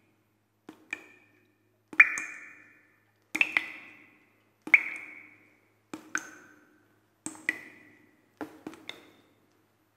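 Sparse struck pitched-percussion notes on the soundtrack, about one every second and a bit. Each note is a sharp click-like attack, often doubled, that rings out briefly and fades before the next one.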